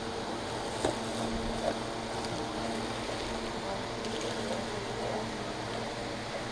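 Steady background hum and hiss, with a couple of faint clicks about a second in and again just under two seconds in.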